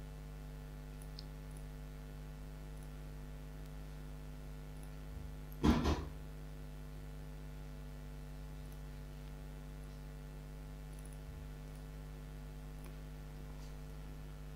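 Steady low electrical hum on the recording, with a few faint computer-mouse clicks. About six seconds in there is one short, loud noise.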